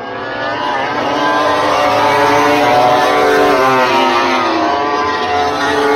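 Racing motorcycles passing at speed, growing louder over the first second or so and then running loud, with several engine notes overlapping and rising and falling in pitch.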